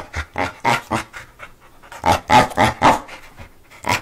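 Boxer dog panting in quick, rhythmic breaths, about four a second, in two runs with a lull of about a second between them.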